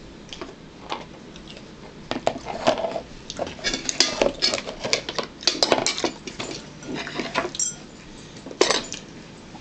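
Cutlery clinking and scraping on a plate and dishes being handled on a table. It is an irregular run of sharp clicks and clatters, busiest about halfway through.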